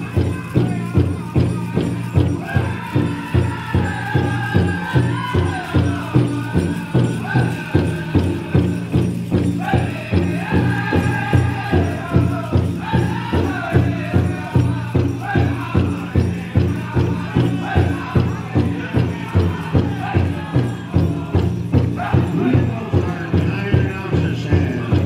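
Pow-wow drum group: a big drum struck in a steady, even beat while the singers chant in high, bending voices that come and go over the drumming.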